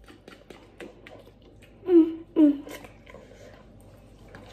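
Eating sounds of noodles being slurped and chewed, with many small sharp clicks. About two seconds in, a woman's voice gives two short, falling moans close together.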